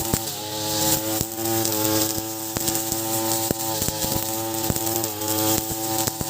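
Two-stroke engine of an Ogawa 26cc brush cutter running at high speed, dipping in pitch several times as the serrated 3.0 mm nylon line on its trimmer plate loads up cutting grass, with sharp ticks of the line striking stalks and debris.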